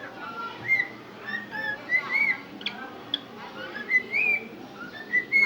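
Cockatiel whistling a run of short notes that rise and fall, with two brief sharp sounds near the middle.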